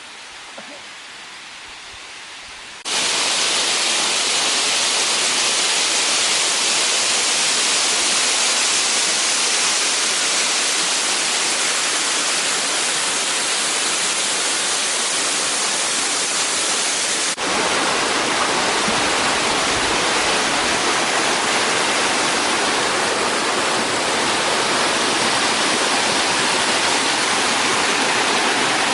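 Waterfall pouring: a steady, loud rush of falling water. It is fainter for the first three seconds, then jumps abruptly louder, and about two-thirds of the way through it shifts to a fuller, deeper rush.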